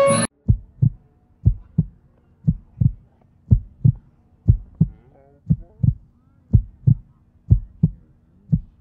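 Heartbeat sound effect: pairs of short low thumps, about once a second, with near silence between them.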